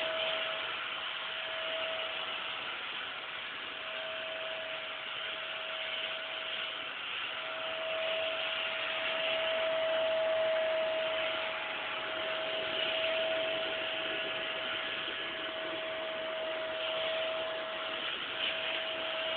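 Vacuum cleaner running steadily, a constant whine over the hiss of its suction, as it is drawn over a dog's coat.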